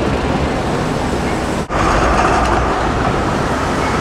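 Busy city street traffic with trams running on street track: a steady mix of cars and trams on rails. The sound drops out briefly about a second and a half in, then resumes a little louder.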